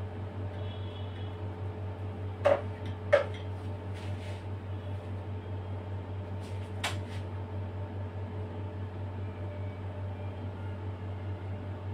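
Steady low hum in the room, with two sharp knocks about two and a half and three seconds in and a lighter click near seven seconds, as cake layers and utensils are handled on a marble work slab.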